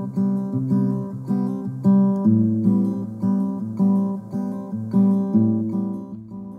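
Music: an acoustic guitar strumming chords in a steady rhythm, fading out near the end.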